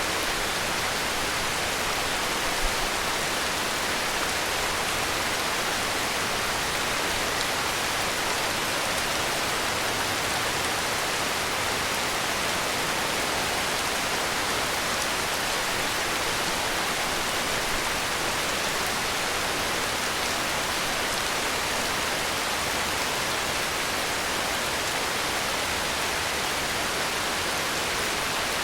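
Heavy rain falling in a steady, even hiss with no breaks or changes.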